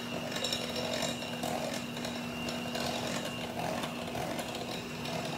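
Handheld electric mixer running steadily, its beaters whirring through chocolate cake batter in a glass bowl.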